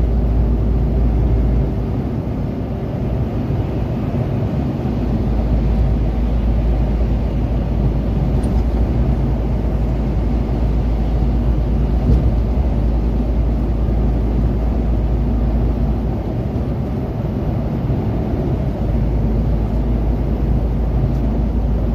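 Steady drone of an articulated lorry cruising on a motorway, heard from inside the cab: engine and tyre noise on a wet road.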